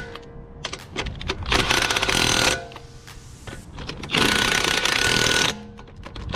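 Impact wrench hammering the lug nuts tight on a car wheel in two bursts of about a second each, with short rattling clicks between them.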